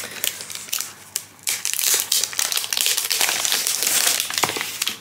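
Clear plastic wrapping on a boxed notebook crinkling as the box is handled, with a few soft cardboard scrapes and taps at first. The crinkling gets loud and dense about a second and a half in.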